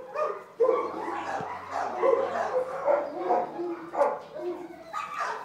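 Dogs barking, repeated short barks at an irregular pace.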